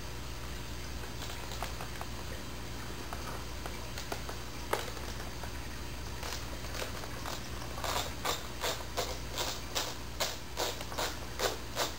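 Small clicks and scrapes of a screwdriver working the screw out from under the trigger of an airsoft sniper rifle, turning into a run of regular clicks, about two or three a second, in the last few seconds.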